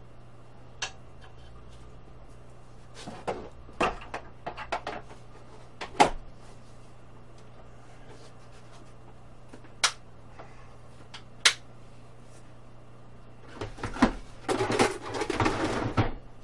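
Hand tools being handled and set down in a workshop: scattered metallic clicks and knocks, then about two seconds of rattling clatter near the end.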